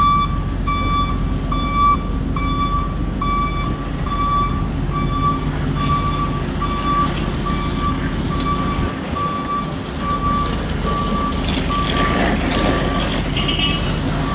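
Raymond forklift's backup alarm beeping in an even, repeating rhythm, about three beeps every two seconds, growing fainter after a few seconds.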